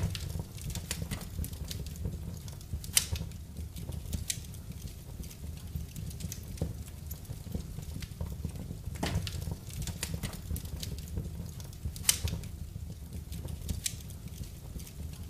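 Wood fire crackling in a fireplace: irregular sharp pops and snaps over a low, steady rumble, with two louder pops about three seconds in and near twelve seconds.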